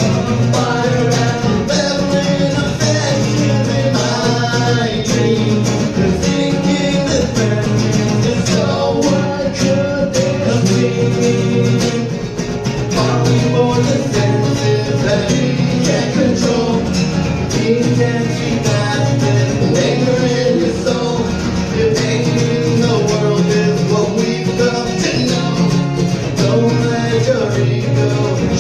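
A live band playing a song, with guitar and a singing voice.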